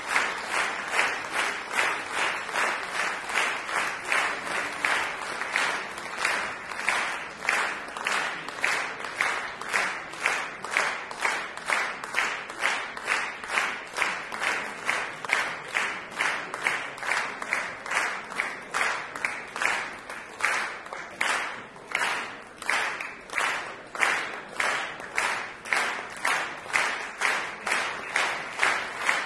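Concert hall audience applauding in rhythmic unison, about two to three claps a second.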